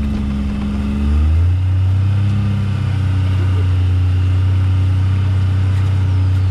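Pickup truck engine running, rising in pitch as it picks up speed in the first second or so, then holding a steady low drone, heard from the open truck bed.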